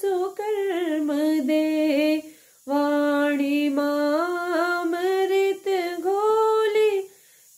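A woman singing a devotional song unaccompanied, in long held, wavering notes, with a short breath pause about two and a half seconds in and a stop just before the end.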